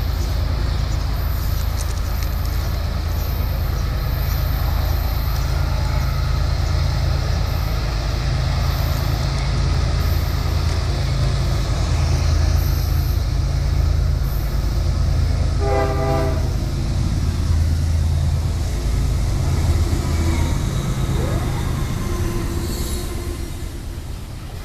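Diesel freight train approaching and passing with a steady low rumble. The locomotive sounds one short horn blast about two-thirds of the way through. Freight cars roll past near the end.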